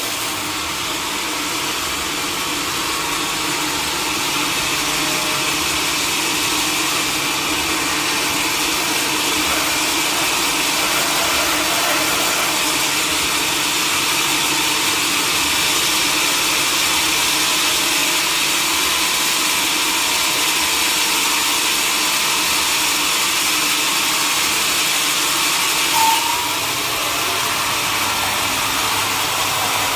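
Sawmill machinery running steadily, a continuous mechanical drone with a hiss. There is one brief sharp sound near the end.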